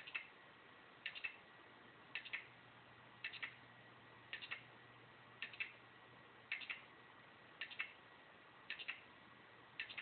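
Failed 1TB Seagate 7200 RPM SATA hard drive, powered on, clunking in a steady repeating pattern: a cluster of two or three short clicks about once a second, over a faint steady whine. The repeated clunk is the sign of the drive's failure.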